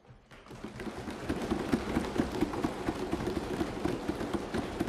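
Assembly members applauding by thumping their desks: a dense run of quick thuds that builds up about half a second in and keeps going, in approval of the speaker's congratulations.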